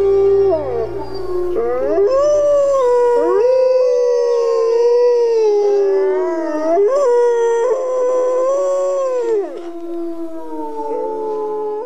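A pack of wolves howling together: several long howls overlap, each sliding up and down in pitch. Under them a low music drone fades out in the first few seconds.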